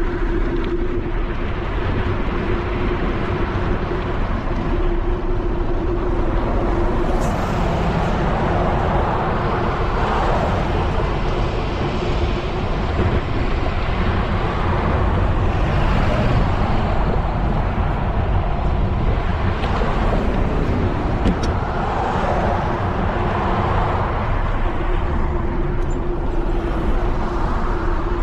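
Wind rushing over an action camera's microphone on a moving bicycle, with road traffic passing alongside, the noise of passing cars swelling and fading several times. A steady hum sits underneath at the start and again near the end.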